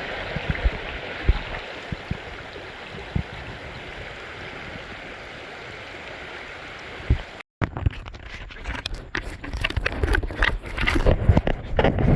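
Steady rush of flowing stream water by a waterfall, with a few low thumps on the microphone. After a sudden cut about seven seconds in, irregular rustling and scraping clicks that grow busier toward the end.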